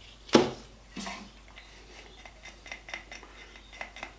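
Tasmanian myrtle wooden box knocked against the workbench and handled: one sharp wooden knock about a third of a second in and a lighter one a second in, then faint small clicks and rustles as it is turned over in the hands.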